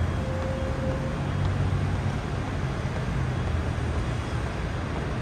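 City road traffic: cars driving past on a multi-lane street, a steady rush of tyres and engines with a low hum.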